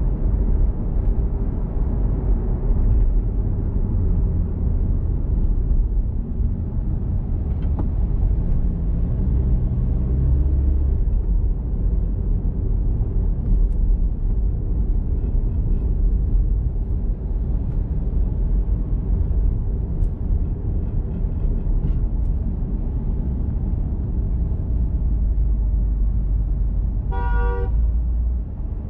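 Steady low road and engine noise of a car driving in city traffic, with one short car horn toot near the end.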